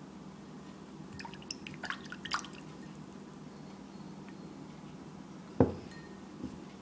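A white bowl handled on a table: a few light clicks and taps, then a single dull knock near the end as it is set down.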